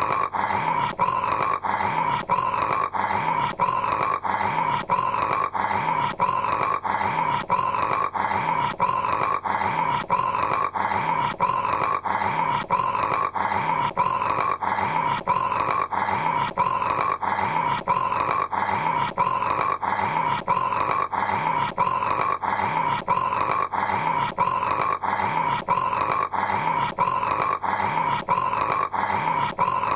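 A person snoring: a rasping snore repeating evenly without pause, with small clicks at regular intervals.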